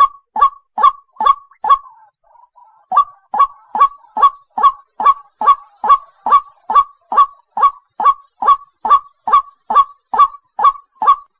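White-breasted waterhen calling, a recorded lure call: a steady run of loud, harsh 'kru-ak' notes, about two to three a second. The run breaks off for about a second around two seconds in, with only fainter chatter, then resumes at the same pace.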